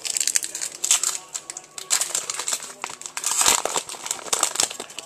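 Foil wrapper of a pack of trading cards crinkling in rapid crackly bursts as it is handled and torn open.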